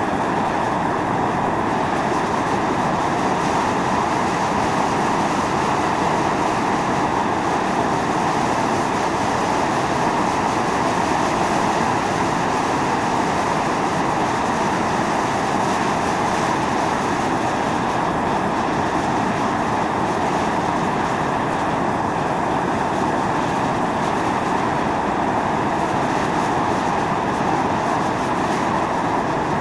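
Volcanic fumarole at Atosanupuri (Mt. Io) venting steam and sulphurous gas in a loud, steady hiss and roar that does not change.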